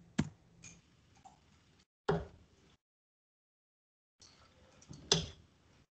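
Three steel-tip darts thrown one after another, each striking a Winmau Blade bristle dartboard with a short sharp knock, about two to three seconds apart.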